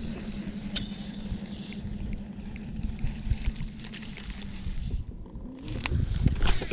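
Electric trolling motor on an Old Town AutoPilot 136 kayak, humming at a steady pitch over low water and wind rumble, stopping about five seconds in. A few light knocks follow, with louder rumble near the end.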